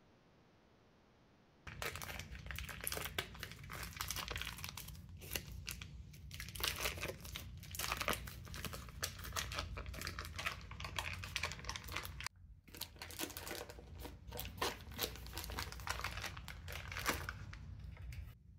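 Foil wrapper of a block of cream cheese crinkling and rustling as it is peeled open and pulled away, in irregular bursts starting a couple of seconds in and breaking off briefly about twelve seconds in.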